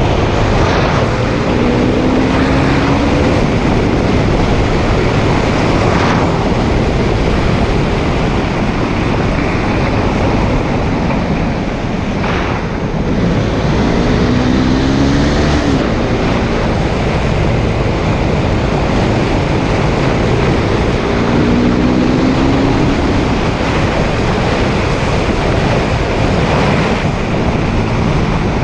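KTM Duke 390 single-cylinder engine with its stock exhaust, riding along under heavy wind rush on the microphone. The engine pitch rises briefly three times, about two seconds in, around halfway, and about three quarters of the way through, as the bike accelerates.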